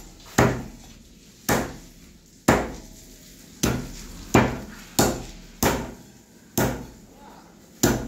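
Heavy cleaver chopping chicken leg pieces on a wooden log chopping block: nine sharp chops, about one a second, each ringing briefly.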